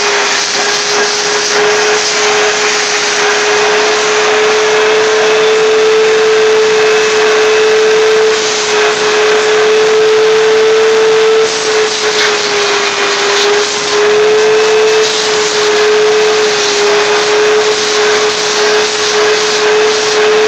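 Shop-vac running steadily as its hose nozzle is drawn over a cat's fur: a constant motor whine over rushing air, the whine rising and dipping a little as the nozzle's airflow changes.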